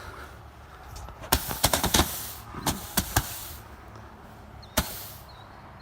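A 10-shot consumer firework cake going off as a dud: a scattered handful of sharp pops and cracks with some hiss, bunched in the first few seconds, and one last crack near the end.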